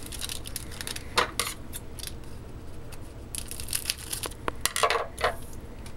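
A hockey trading-card pack being handled and cut open with scissors: the wrapper rustling and crinkling, with scattered sharp clicks and snips.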